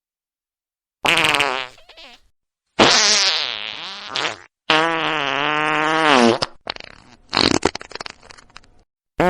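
A run of fart sounds. After about a second of silence come three drawn-out farts with a wavering pitch, the longest nearly two seconds, then a sputtering string of short ones, and another fart starting right at the end.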